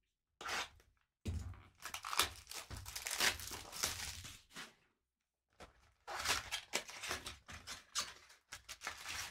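Trading card pack wrapper being torn open and crinkled by hand, in two stretches of crackling with a short pause between.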